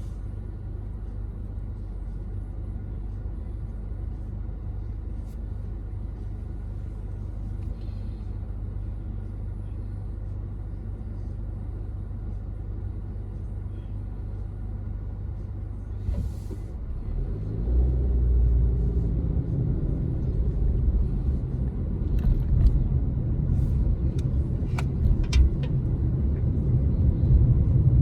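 Car engine and road noise heard from inside the cabin: a steady low hum, then about 17 seconds in the car accelerates, the engine note rising in pitch and growing louder. A few light clicks sound near the end.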